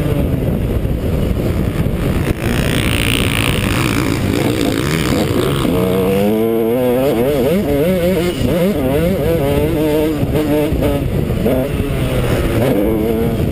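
Motocross bike engine revving hard through the throttle as it is ridden around the track, heard close up from an on-board camera. Its pitch keeps rising and falling, with quick up-and-down swings about halfway through.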